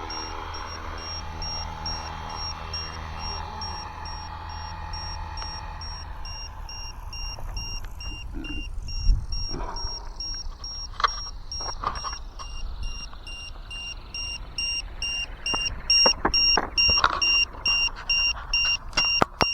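LiPo voltage tester's buzzer beeping its low-voltage alarm in a steady repeating high-pitched pattern, the sign that the helicopter's 4S battery is running low. Over the first few seconds the FW450L V3 RC helicopter's motor and rotor sound fades away, and sharp clicks and knocks follow, most of them near the end.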